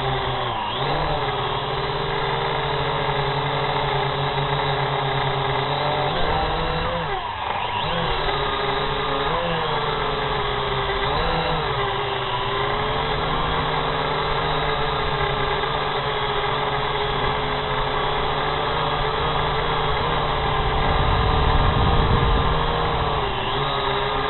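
Quadcopter drone's motors and propellers whining steadily, the pitch dipping and climbing back several times as it manoeuvres. A louder low rushing noise swells briefly near the end.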